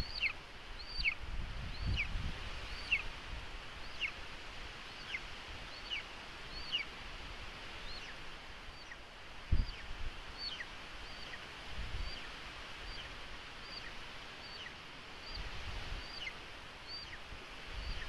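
A young golden eagle calling over and over, a thin high call with a quick downward slur about once a second, typical of an eaglet's food-begging. A few low thumps and rustles from the nest come through under the calls.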